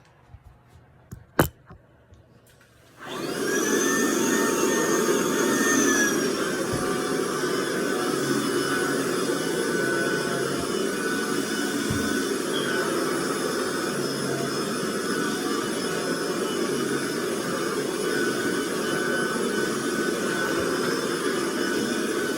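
Vacuum cleaner switched on after a few clicks about three seconds in: the motor spins up and then runs steadily with a whine over a rushing of air.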